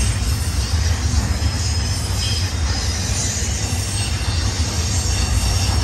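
BNSF intermodal freight train's trailer-carrying flatcars rolling past at close range: a steady, loud low rumble of steel wheels on rail, with high-pitched wheel squeal coming and going.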